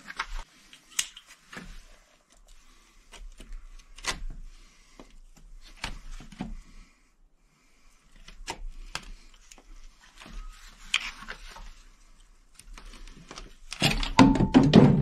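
Hoses and hose clamps being worked loose by hand on a marine diesel engine's coolant system: scattered clicks, taps and scrapes, with a louder stretch of rubbing and scraping near the end.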